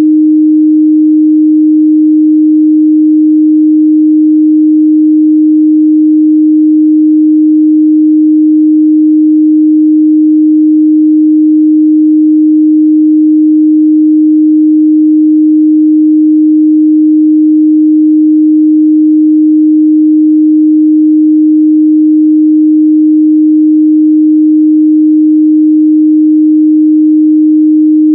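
A steady, loud 308 Hz pure sine test tone, one unwavering pitch with no harmonics.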